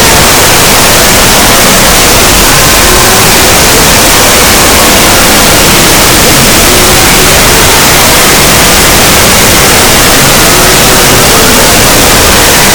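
Extremely loud, distorted static-like noise filling every pitch, with faint wavering tones buried in it: a deliberately blown-out scare sound effect.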